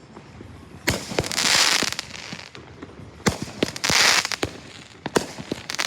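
Fireworks going off: three sharp bangs about two seconds apart, each followed by about a second of loud hiss, with smaller pops in between.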